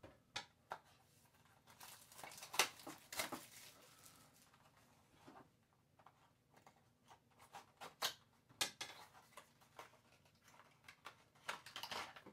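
Faint handling of small cardboard and plastic packaging as a diecast model car is unboxed: scattered clicks, taps and short crinkling rustles, a few louder snaps among them.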